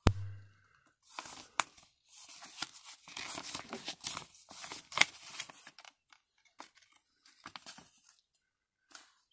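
Folded paper instruction leaflet being unfolded and handled: irregular rustling and crinkling of paper with sharp crackles, thinning out near the end.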